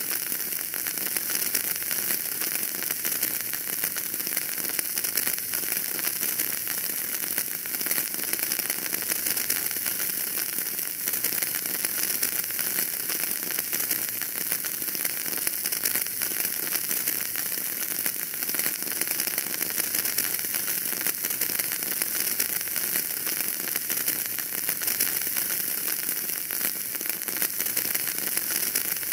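Wood fire in a fireplace crackling steadily, a dense run of small pops over a constant hiss.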